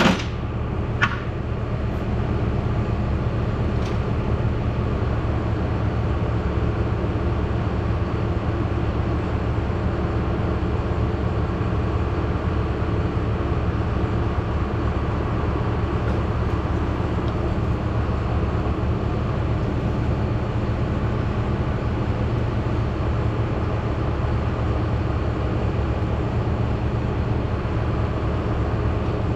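A steady low mechanical rumble with an even hum, like a machine running, with a sharp knock right at the start and another about a second in.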